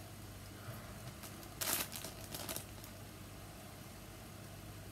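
Plastic packaging bag crinkling as it is handled: one short rustle a little under two seconds in, then a few softer ones.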